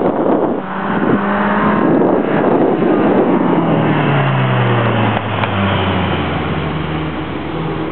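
Small car's engine pulled hard around an autocross course of cones, its note rising and falling with throttle and gear changes; from about halfway through the pitch falls steadily and then holds lower. Wind buffets the microphone throughout.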